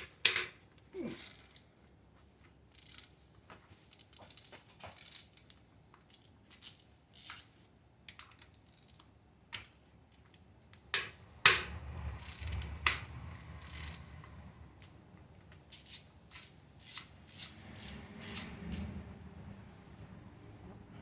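Metal hand tools clinking, clicking and scraping against engine parts at irregular intervals, with the loudest knocks near the start and about eleven seconds in, during teardown work on a Ford 4.6-litre 2-valve V8.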